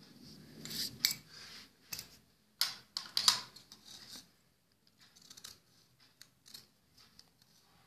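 Scissors cutting through cloth: a run of short snips, the loudest in the first half and fainter ones later.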